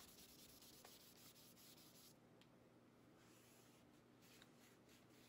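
Very faint rubbing of emery cloth and a wiping cloth over a steel knife blade, cleaning it up after etching; near silence otherwise.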